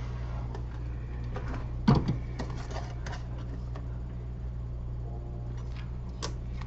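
A steady low hum, with scattered light clicks and taps of small tools being handled on a repair bench. The loudest is a knock about two seconds in.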